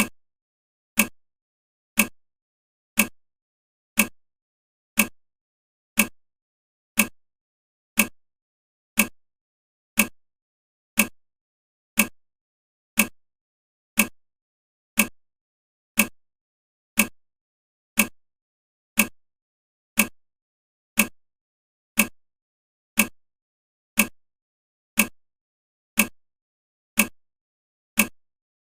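Countdown timer's clock-tick sound, one short sharp tick every second, evenly spaced, with silence between.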